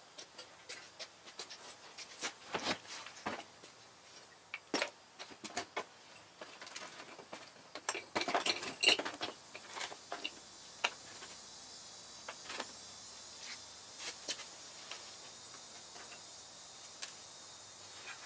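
Scattered metallic clinks and rattles of tools and parts being handled, busiest about eight to nine seconds in. A faint steady hiss comes in about ten seconds in.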